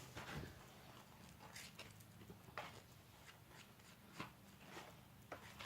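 Faint clicks and scrapes of a stretched-out bobby pin stirring thickening hair-glue-and-salt slime in a plastic Play-Doh lid: a handful of scattered ticks over a low steady hum.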